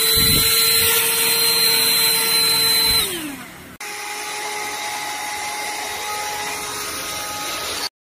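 Kadonio cordless stick vacuum's motor switching on with a high whine, running steadily, then winding down about three seconds in as it is switched off. After a sudden cut the vacuum runs again, quieter and at a lower pitch, and stops abruptly just before the end.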